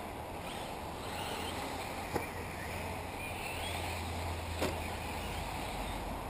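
Radio-controlled off-road model cars running on a dirt track, their motors faintly whining up and down, under wind noise on the microphone. Two sharp clicks, about two and four and a half seconds in.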